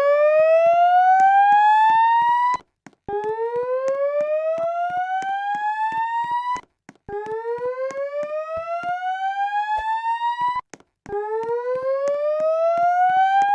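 Fire alarm voice-evacuation speakers sounding the slow-whoop tone: a rising sweep that climbs for about three and a half seconds, breaks off and starts again low, repeating about every four seconds with a slight pulsing.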